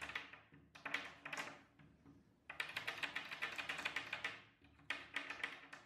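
Wooden block rolling a braided leather strap back and forth against a wooden tabletop, a rapid clicking rasp in four bursts with short pauses. The braid is being burnished so that it comes out smooth, round and free of rough edges.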